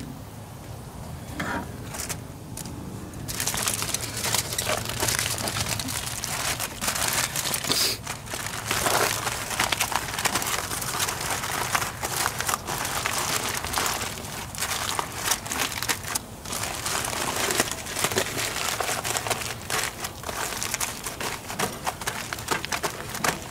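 Sheet of aluminium foil being folded and pressed by hand into a closed wrap, crinkling and crackling continuously from about three seconds in.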